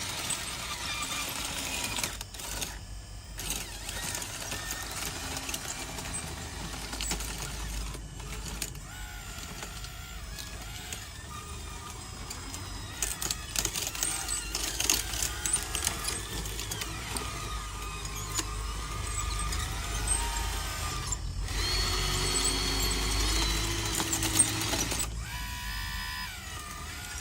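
Small electric motors and gearboxes of RC construction models whining as they work, the pitch rising and falling as they speed up and slow down, with scattered clicks.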